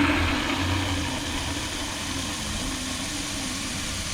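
A steady low mechanical hum, like a motor or engine idling.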